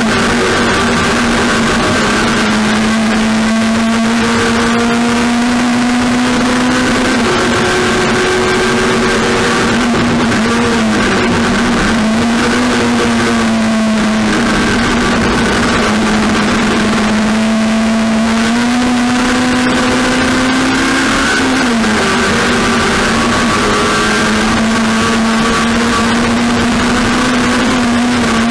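Race car engine running hard at steady high revs, its note dipping briefly and climbing back twice.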